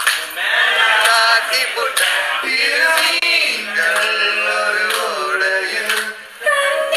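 A man singing a Tamil film song live into a handheld microphone over a PA, holding long, sliding notes. Short sharp beats come about once a second, and there is a brief break in the singing near the end.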